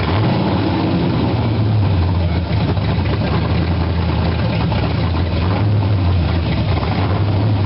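Ford 351 Cleveland V8 running steadily in a 1966 Ford Falcon on its first startup, during cam break-in, its low note easing and swelling slightly.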